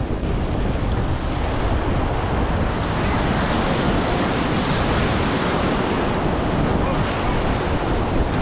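Whitewater rapids of the South Fork Payette River at high water, rushing steadily around a raft, with wind noise on the microphone.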